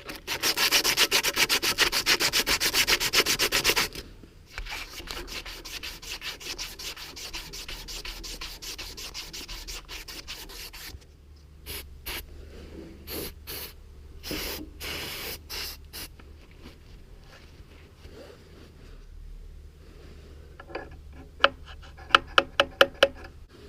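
Emery cloth rubbed rapidly back and forth on a rusty metal shaft to clean it up, hard for the first four seconds, then lighter strokes and scattered rubs. A quick run of sharp clicks near the end.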